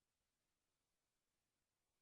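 Near silence: only a faint, even noise floor, no music playing.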